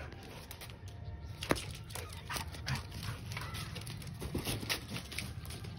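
Labrador retriever splashing and pawing about in a shallow puddle on concrete: a string of short splashes and taps, the sharpest about a second and a half in.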